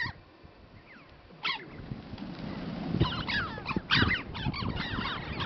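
Flock of red-billed choughs calling. A few single high calls at first, then, about three seconds in, many overlapping calls as the flock takes off together, over a low rushing noise with two louder sudden sounds about three and four seconds in.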